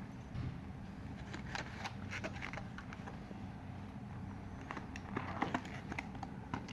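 Scattered small clicks and wet smacks of someone eating a meal of rice, chicken and rasam, over a low steady hum.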